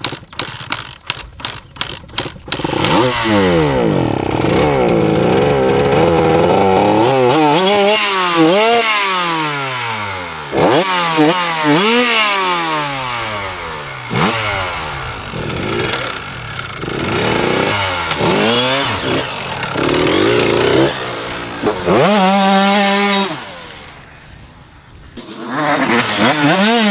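Small dirt bike engine revving up and down over and over as it is ridden, its pitch climbing and falling with the throttle and holding steadier near the end. A quick run of sharp clicks comes before it, in the first couple of seconds.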